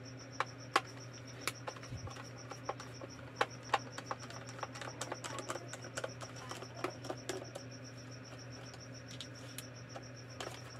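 Scattered light clicks and taps from a plastic emergency-light casing being handled and turned over, over a steady low hum and a continuous high, rapidly pulsing trill.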